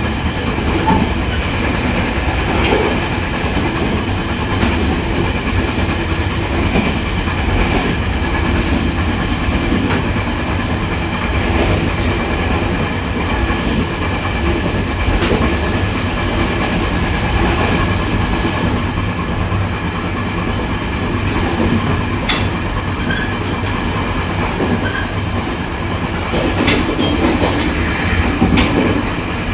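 Running sound of a Taiwan Railway E500 push-pull Tze-Chiang express cruising steadily at about 90 km/h: continuous wheel-on-rail rumble with rail-joint clicks and a few steady high tones. The train has an out-of-round, flatted wheel, whose beat is part of the running noise.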